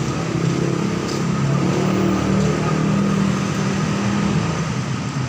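A motor vehicle engine running steadily, with a low hum under a steady wash of noise.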